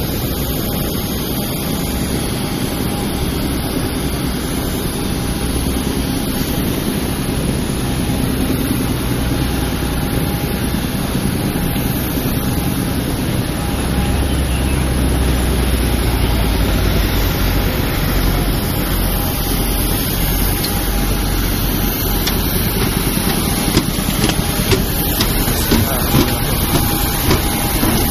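Steady noise of jet airliners and ground equipment on an airport apron, a continuous rush with a steady whine over it, growing a little louder about halfway through. Near the end, sharp footfalls on a metal boarding stair.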